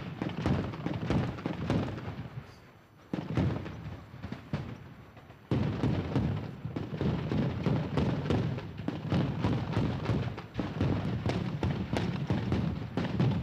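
Sustained automatic gunfire in rapid bursts, many shots a second, echoing. Two short lulls come early, then the fire runs almost unbroken through the second half.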